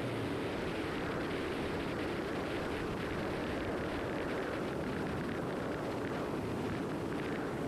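Steady rumble of a boat underway at low speed: the motor running with the rush of water and air past the hull, at an even level throughout.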